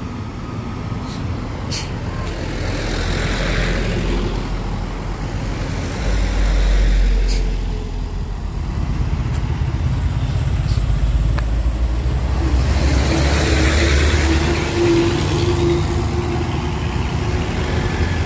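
Road traffic passing: engine rumble and tyre noise from heavy vehicles going by, swelling and fading as each passes, with a second vehicle's engine drone loudest about two-thirds of the way through.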